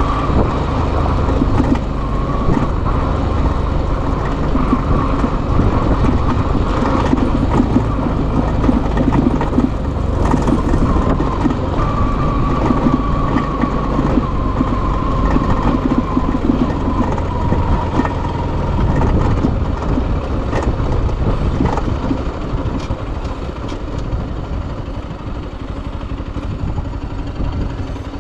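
Motorcycle engine running under way, with a steady rush of wind. Around the middle, a whine in the sound slowly drops in pitch.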